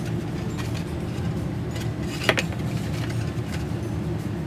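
Cardstock and paper being handled and folded on a craft mat: light taps and rustles, with one sharp click about two seconds in. A steady low hum underneath.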